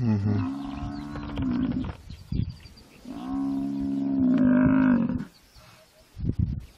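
African buffalo bellowing in distress as it is eaten alive by spotted hyenas: two long, low moaning calls, the first at the start and the second about three seconds in. A short low thud follows near the end.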